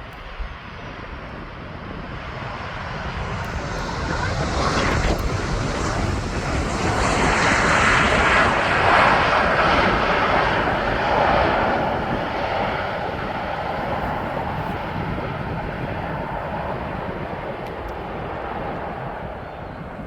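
Transavia Boeing 737 jet on landing approach passing by: the engine noise builds to its loudest about eight to eleven seconds in, then slowly fades.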